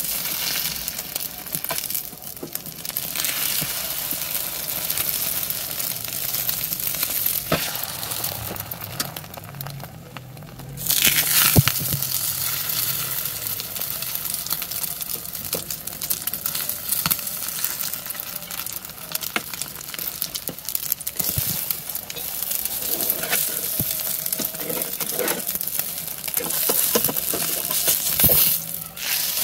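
Egg omelette frying in hot oil in a pan, sizzling steadily, while a metal slotted spatula scrapes and clinks against the pan as the egg is folded and turned. The sizzle dies down briefly and comes back loud about eleven seconds in.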